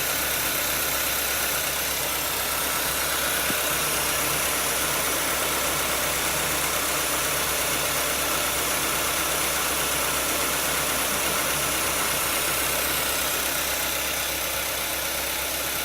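Mazda CX-7 engine idling steadily, with a broad steady hiss over a low, even hum and no change in speed.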